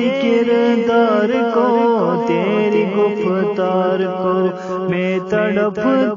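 A man's solo voice chanting a naat, an Urdu devotional poem in praise of the Prophet Muhammad. He draws the words out into long, wavering, ornamented notes without a pause.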